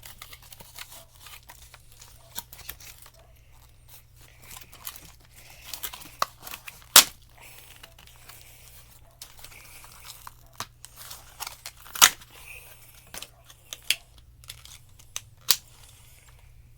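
Packaging being handled and torn open: paper and plastic rustling and crinkling, broken by sharp clicks and snaps, the loudest about seven and twelve seconds in.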